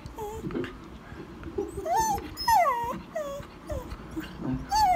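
A dog whining in a run of short, high whimpers, about five in a row, some rising and then falling in pitch: the dog is asking its owner to come to bed.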